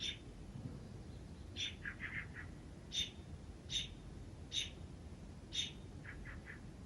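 A bird calling: short sharp chirps, six in all, repeating roughly every second, with two quick runs of three or four lower notes in between.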